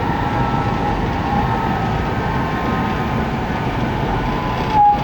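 Running noise of a 700 series Rail Star Shinkansen heard from inside the carriage: a steady rumble with a faint, even whine on top. A brief louder tone sounds near the end.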